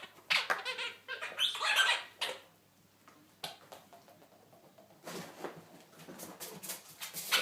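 A dog squeezing a squeaky rubber ball in its jaws: a quick run of high squeaks over the first two seconds, then a pause and softer scuffing sounds near the end.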